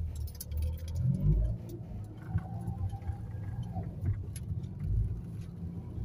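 Inside a Toyota car while driving: a steady low rumble of engine and road noise, with small rattles and clicks scattered through it.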